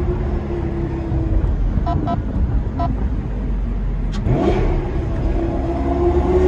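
Lamborghini Gallardo Superleggera V10 with an aftermarket F1-style exhaust, running steadily at low revs in city driving, with one brief rise in revs about four and a half seconds in.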